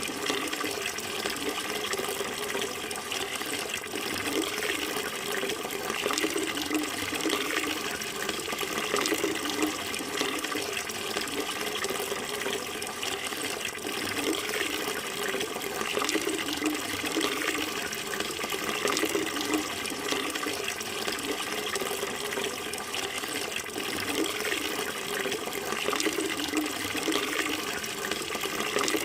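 Running water flowing steadily, with a continuous splashing rush and small ripples in its level.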